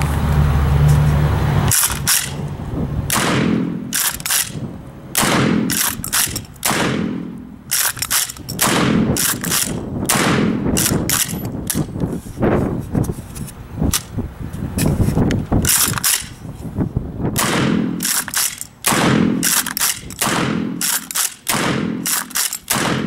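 Kel-Tec KSG 12-gauge pump-action bullpup shotgun firing shot after shot in quick succession.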